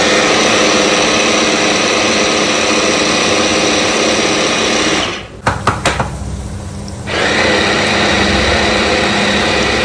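Electric mixer grinder running, grinding mint and tomato chutney. The motor stops about five seconds in, with a few clicks, and starts again about two seconds later.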